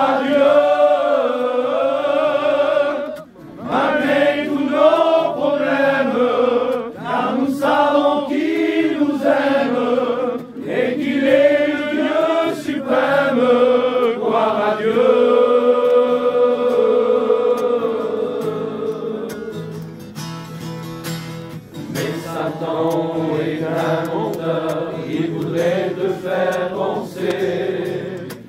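A group of men singing a Christian worship song together, accompanied by an acoustic guitar.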